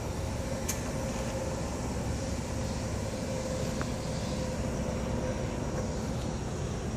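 Steady low rumble of outdoor background noise with a faint steady hum running through it, and a single sharp click about a second in.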